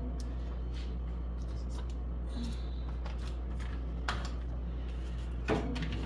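Plastic yogurt cups being set down and slid on a refrigerator's wire shelf: a few light knocks and clicks, the loudest about five and a half seconds in, over a steady low hum.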